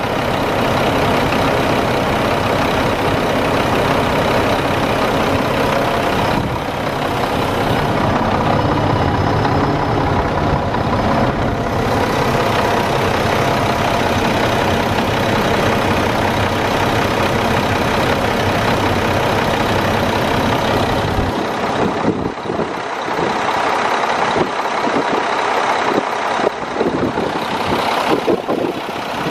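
Mack E7 12-litre six-cylinder diesel of a 2007 Mack CHN613 semi truck idling steadily. About 21 seconds in, the deep low rumble drops away and the sound becomes more uneven.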